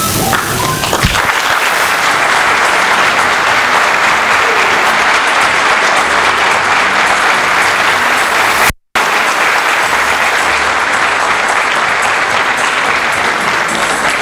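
Audience applauding steadily, starting about a second in, with a brief break in the sound near nine seconds.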